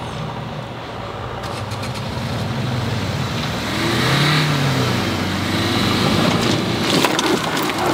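Maruti Suzuki Ertiga's engine revving hard as the car struggles for grip on loose stones; the revs rise and fall about halfway through, then hold high, with gravel crackling under the wheels near the end.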